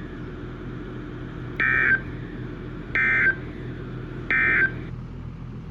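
Emergency Alert System end-of-message data bursts: three short, identical buzzy digital tone bursts about a second and a half apart, signalling that the alert has ended. They sit over a low steady hum.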